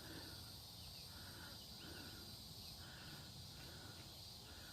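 Faint outdoor woodland ambience: a steady high insect drone with a soft chirping call repeated about every two-thirds of a second, over a low rumble.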